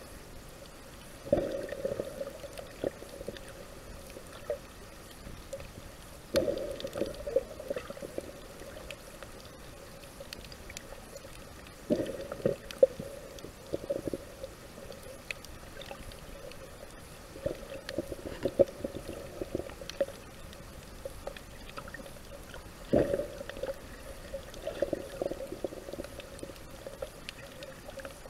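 Muffled underwater gurgling and bubbling picked up by a submerged camera, coming in bursts about every five seconds over a steady low hiss.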